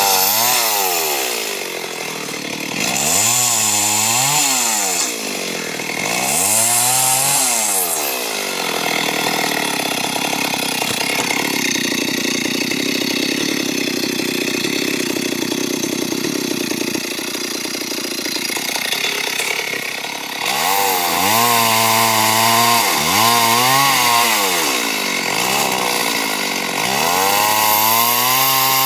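Gasoline chainsaw engine revving up and dropping back several times, with a longer steadier stretch in the middle, typical of sawing into a large tree trunk.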